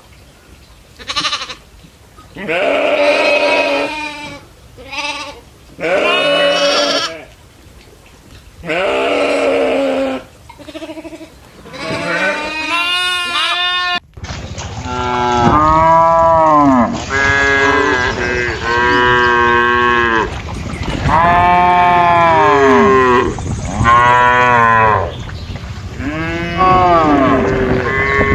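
Goats bleating in a string of separate calls, then an abrupt cut about halfway through to cattle mooing repeatedly, one arching call after another.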